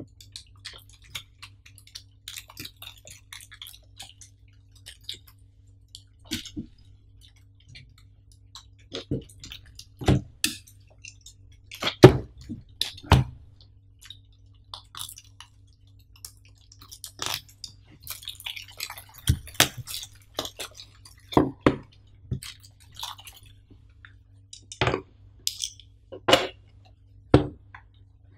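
Unboxing of a Zoom APH-4N Pro accessory pack: plastic wrap and packaging crinkle and rustle under the hands, with scattered knocks and taps as the boxes and parts are handled and set on the table. The loudest knock comes about twelve seconds in. A faint low hum runs underneath.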